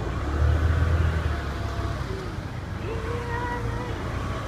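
Low road and wind rumble while riding a bike over a paved road, loudest about half a second to a second in. A short pitched tone is heard for about a second around three seconds in.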